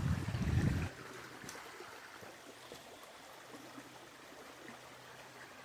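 Shallow creek water running steadily over stones, a faint trickle. A low rumble on the microphone cuts off about a second in.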